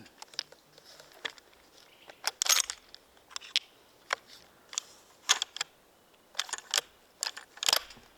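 An irregular series of sharp clicks and small knocks, a dozen or so, loudest about two and a half, five and a quarter and nearly eight seconds in.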